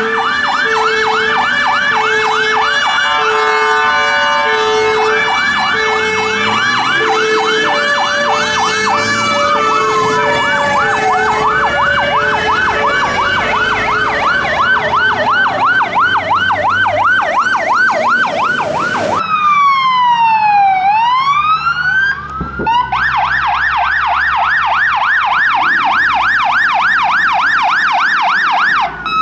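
Sirens of several fire engines responding to an emergency, mostly in a fast yelp with slower wail sweeps between. For the first half a low tone pulses about once a second under them. About two-thirds of the way in the sound changes abruptly to a slow wail falling and rising, then the fast yelp returns.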